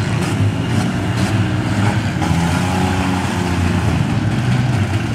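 Engines of several demolition-derby minivans running and revving together in the pit, a loud, steady, overlapping engine drone.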